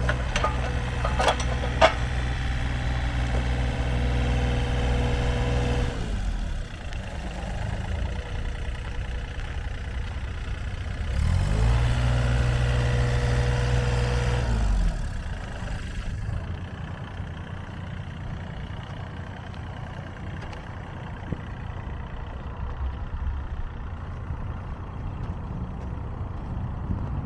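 Diesel engine of a Takeuchi TB230 mini excavator running at a steady speed, with a few sharp metallic clicks in the first two seconds. It eases down about six seconds in, revs up at about eleven seconds, holds, and drops back near fifteen seconds. The last part is a quieter, steady noise.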